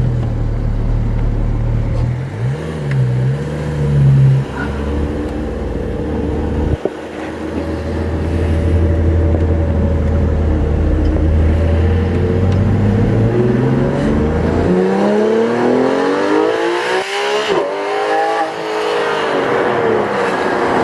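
Porsche 991 GT3 RS's naturally aspirated 4.0-litre flat-six heard from the passenger seat, first running steadily at a low drone. About two-thirds of the way in, the car accelerates hard and the engine note climbs steeply, then falls away again near the end.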